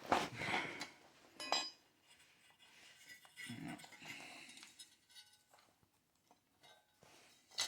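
Small metal parts being handled: a few sharp clinks and knocks, a cluster near the end, with scraping and rustling between them.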